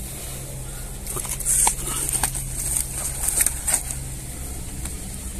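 Rustling and crackling handling noise as a caught snakehead is gripped and moved about on dry grass. A quick string of sharp crackles comes between about one and four seconds in, over a steady low hum.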